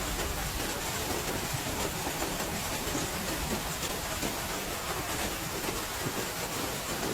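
Heavy rain falling steadily: a dense, even hiss with some low rumble and faint drop patter throughout.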